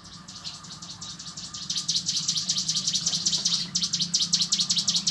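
Cigun songbird singing a fast, continuous trill of rapid high notes in the rolling 'ngebren' style, swelling over the first two seconds and breaking off briefly near the end. A steady low hum runs underneath.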